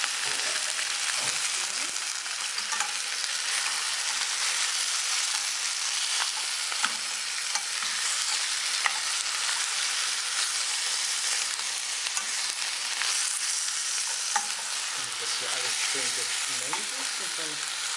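Pak choi, long beans, beef and prawns stir-frying in a steel pan: a steady sizzle, with a few sharp clicks as a wooden spoon stirs against the pan. The vegetables are being fried only briefly so they stay crisp.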